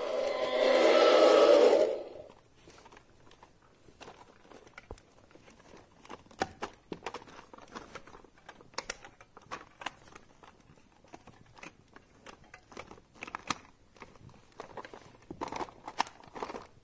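A loud rasping noise that stops sharply about two seconds in, then quiet scattered clicks, taps and rustles of plastic toy figures being handled and moved on carpet.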